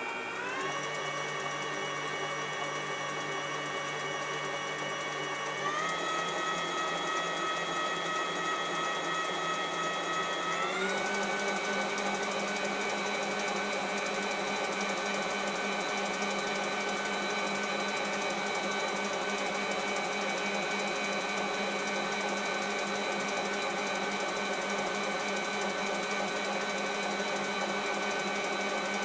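Electric mixer beating meringue. Its motor whine steps up in pitch three times as the speed is raised, about half a second in, about six seconds in and about eleven seconds in, then runs steadily at the top speed.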